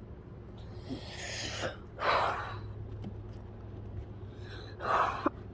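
A sick person's gasping breaths: three noisy breaths about one, two and five seconds in, the last two the loudest.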